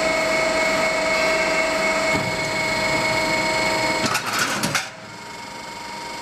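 Double-layer roof-sheet roll forming machine running, its drive and rollers giving a steady mechanical whine made of several held tones. About four seconds in comes a short, noisy, rattling burst, after which the running sound is quieter and slowly builds again.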